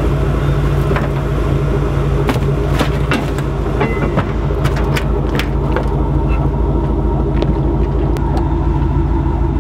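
Pickup truck engine idling steadily, with scattered sharp knocks and clatters from someone climbing over the truck bed and onto the boat.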